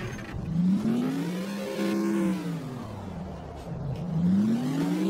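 Video-game vehicle engine sound revving up, holding, and easing back down, then revving up again near the end.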